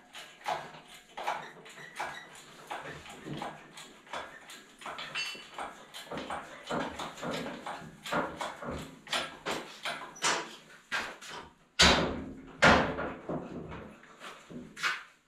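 Irregular knocking and clattering, a few knocks a second, with two heavy thumps about twelve seconds in.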